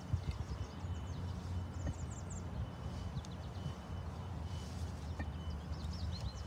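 Outdoor ambience: a steady low rumble, with small birds chirping in quick little runs of short high notes about two seconds in, about three seconds in and near the end.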